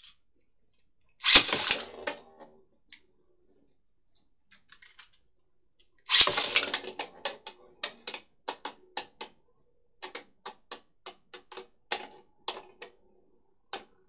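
Beyblade Burst spinning tops clattering in a plastic Hasbro Battle Tower stadium. There are loud rattling bursts about a second in and again about six seconds in, then a run of sharp plastic clicks and knocks, about three a second, as the tops strike each other and the stadium walls, thinning out near the end.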